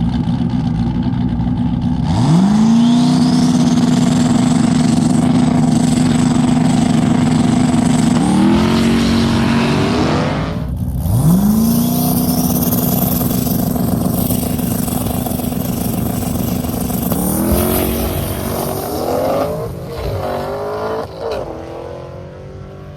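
Turbocharged LS V8 drag car making two launches down the strip. Each time the engine revs shoot up and then hold nearly level at high rpm, with a turbo whine climbing above them, before the revs step down and fall away as the driver lifts.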